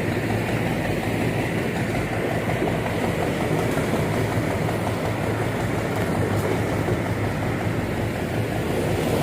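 Heavy engine running steadily with a low, even drone and no change in speed.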